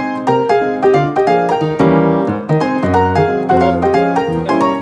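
Background piano music: a quick melody of short, evenly struck notes.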